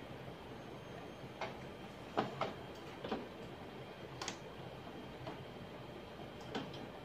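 HP Color LaserJet MFP M178nw laser printer running as it prints a demo page: a low, steady mechanical hum with scattered sharp clicks and ticks, the loudest a little over two seconds in.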